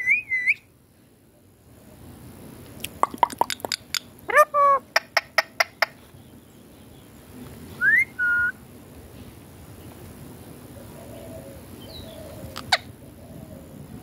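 Rose-ringed (Indian ringneck) parakeet whistling and clicking. A wavy whistle at the start, a quick run of sharp clicks with a ringing call about three to six seconds in, a rising whistle into a short held note about eight seconds in, and a single click near the end.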